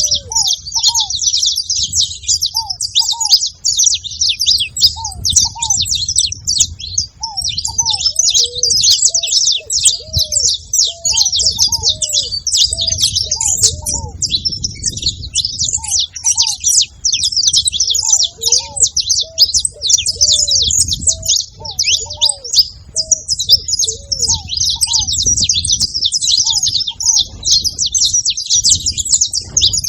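Several saffron finches chirping and singing together in a dense, unbroken chatter of quick high notes, with short lower curved notes coming in every second or two.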